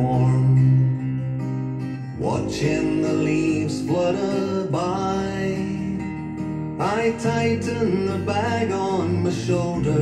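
Recorded music in an instrumental passage with no singing, led by plucked guitar, with notes sliding up in pitch about 2, 5 and 7 seconds in.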